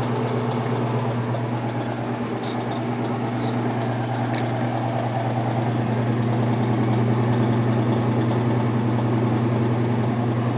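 Kenmore top-load washing machine running, a steady motor hum during its drain cycle, which swells slightly about halfway through, with a couple of light clicks about three seconds in. The washer is draining properly again now that a sock has been cleared from its water pump.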